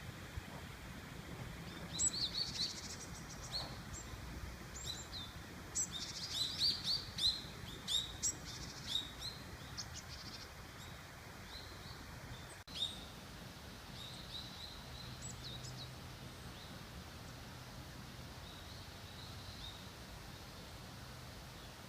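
Small songbirds chirping: rapid runs of short, high calls, thickest in the first half and thinning to fainter, scattered calls in the second half.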